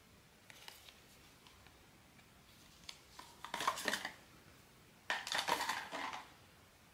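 Blind-box packaging being handled and opened: a faint crinkle, then two bursts of crinkling and clicking, each about a second long, about three and five seconds in.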